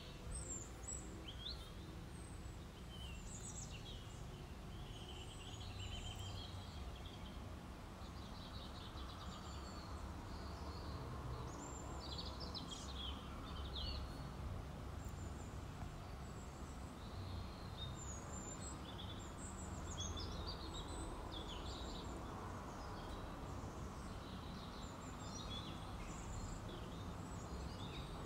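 Small birds chirping on and off in the background over a steady low rumble of room noise.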